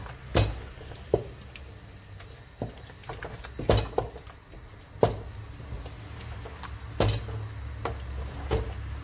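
Wooden spoon stirring thick ogbono soup in a non-stick pot, knocking against the pot's sides every second or so, over a low steady hum.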